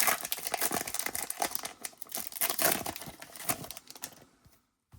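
Foil trading-card pack being torn open and crinkled, a dense run of crackling and rustling that dies away after about four seconds.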